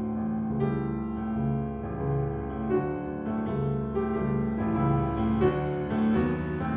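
Background piano music: a gentle, evenly paced melody of sustained notes.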